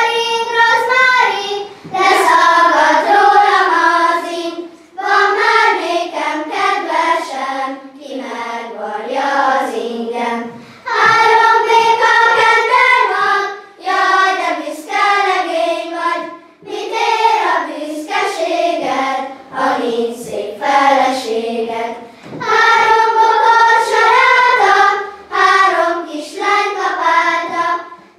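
A children's choir singing a song in unison, in phrases of a few seconds each with short breaks for breath between them.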